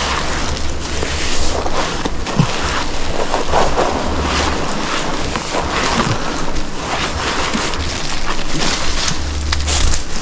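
Wind buffeting the microphone: a steady rushing noise with low rumbling gusts.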